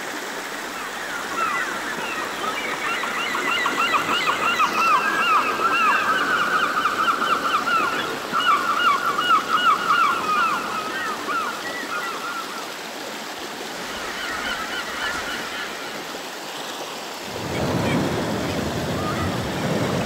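Shallow stream running over rocks, with long runs of rapid, repeated animal calls in the first half. A louder rush of noise swells up near the end.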